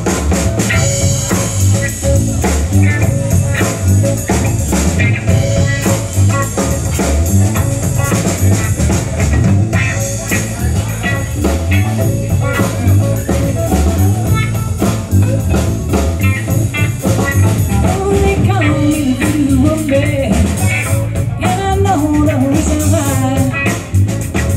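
Live band playing a blues-rock groove: electric guitar, bass guitar and drum kit keeping a steady beat.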